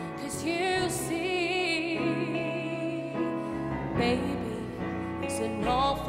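A woman singing a slow ballad over instrumental accompaniment. She holds a long note with vibrato in the first couple of seconds, then starts new phrases about four seconds in and again near the end.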